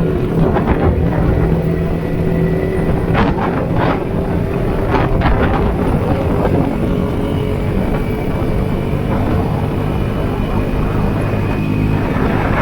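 Yamaha Sniper 150's single-cylinder engine running at a fairly steady pitch as the motorcycle is ridden, with a few brief gusts of noise about three to five seconds in.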